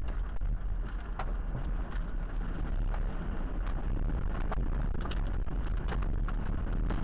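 Hailstorm: a steady rumble of wind and rain with scattered sharp knocks of hailstones striking.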